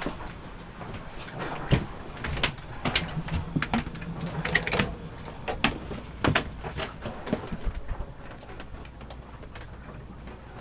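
Irregular clicks and knocks of gear being handled and moved about in a sailing yacht's cabin, with a few short creaks. The knocking is busiest over the first eight seconds and thins out after.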